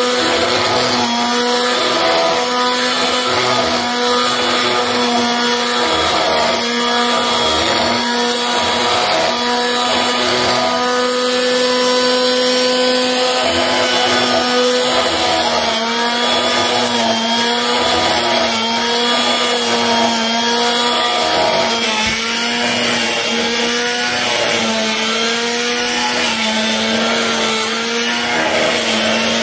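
Motorised power tool running continuously under load, its pitch dipping and recovering in repeated waves.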